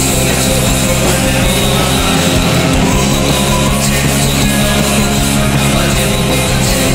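Loud, dense shoegaze-style rock: a wall of heavily distorted guitars over sustained bass notes, the bass moving to new notes about two and three seconds in.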